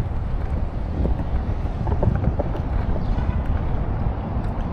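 Wind on the microphone over outdoor ambience: a steady low rumble with a few faint ticks about two seconds in.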